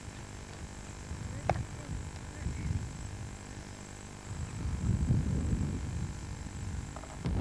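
Wind buffeting the camcorder microphone: an uneven low rumble that grows stronger about four seconds in, with a single sharp click about a second and a half in and a faint steady high-pitched whine underneath.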